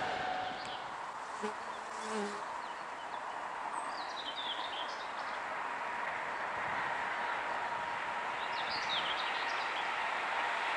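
Outdoor ambience beside an empty railway line: a steady hiss, with short bird chirps about four seconds in and again near the end.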